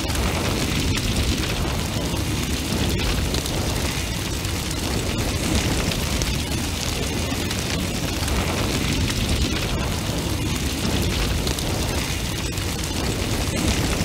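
A large, intense fire burning: a steady rush of flames over a deep low rumble, with many small crackles throughout.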